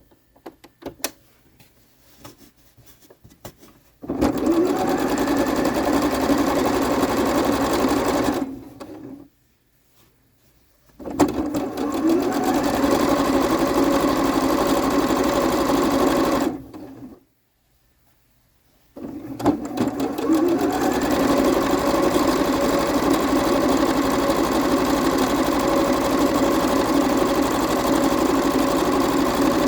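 Electric sewing machine stitching fabric strips together in three steady runs with short pauses between. The first run starts about four seconds in, after a few light clicks of fabric being handled.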